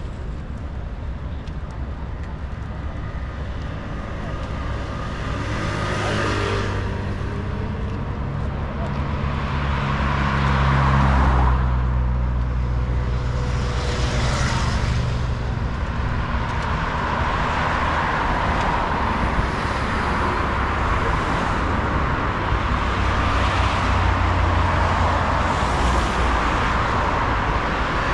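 Road traffic: motor vehicles passing one after another, each swelling and fading, over a continuous roadway noise, with a deeper engine rumble loudest from about ten to sixteen seconds in.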